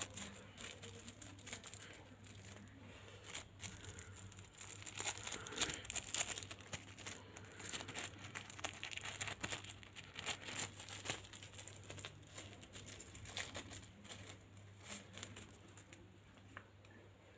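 Thin plastic sticker sachet crinkling and tearing as it is opened by hand: an irregular run of soft crackles that thins out near the end, over a faint low steady hum.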